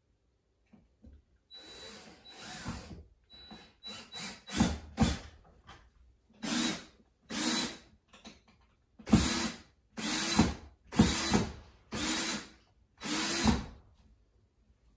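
Power drill with a Phillips bit driving screws through a blind's mounting bracket into painted wood paneling. It runs in a dozen or so short trigger pulls, each a brief whine that rises and falls.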